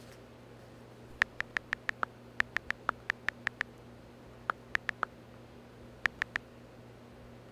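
Smartphone touchscreen keyboard clicks as keys are tapped: a quick run of about fourteen taps, then a run of four and a run of three, over a faint steady hum.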